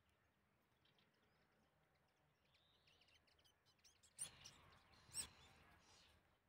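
A small mouse, caught by a cat, squeaking faintly twice, about four and about five seconds in; the rest is near silence with faint outdoor ambience.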